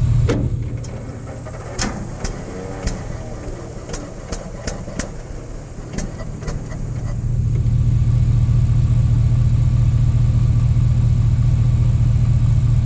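The gasoline pony motor of a Cat D7 3T dozer being started after six years of sitting: a few seconds of clicks and knocks, then about seven seconds in a steady engine note comes up and holds as it runs.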